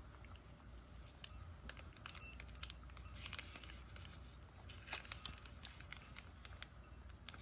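Cat eating wet food from a ceramic bowl: faint, irregular clicks and ticks of chewing and licking, bunched about three seconds in and again around five seconds.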